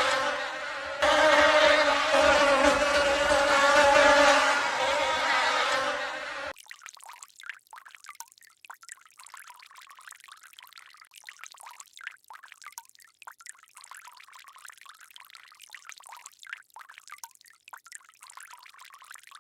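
A bee buzzing steadily, a pitched drone, for about the first six seconds. It then cuts off abruptly to a much quieter crackling hiss with no low end.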